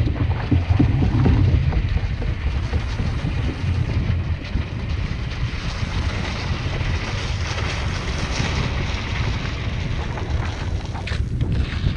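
Wind buffeting the camera's microphone on open lake ice: a steady, rumbling noise that is strongest in the first couple of seconds, with a few light clicks near the end.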